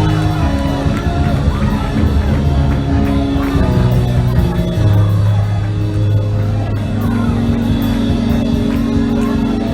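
Live church praise music played loudly: long held chords and a moving bass over a steady drum beat, with congregation voices shouting and singing in praise.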